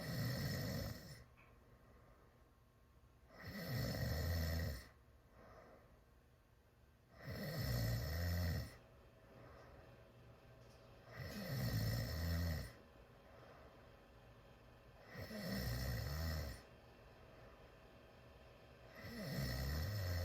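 A sleeping teenager snoring loud with the mouth wide open: six snores in a steady rhythm, one about every four seconds, each lasting a little over a second.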